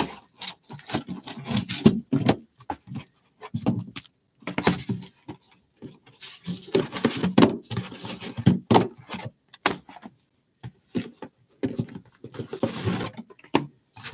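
Shrink-wrapped hobby boxes being pulled out of a cardboard case and set down on a pile: irregular scraping, sliding and light knocks of cardboard and wrapped boxes, in quick clusters with short pauses.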